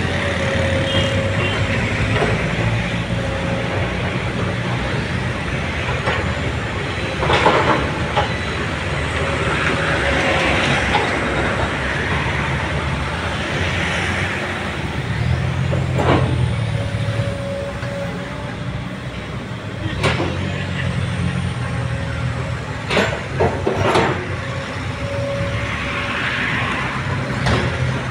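Komatsu PC200 hydraulic excavator's six-cylinder diesel engine running under working load while it digs and swings, its note swelling and easing every few seconds with each cycle. Several sharp knocks from the digging gear stand out above the engine.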